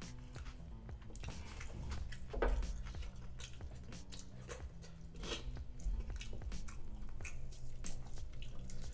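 Close-miked chewing and wet mouth smacking of a man eating rice and chicken in thick red chilli gravy with his fingers, with squishing as his hand mixes rice into the gravy near the end.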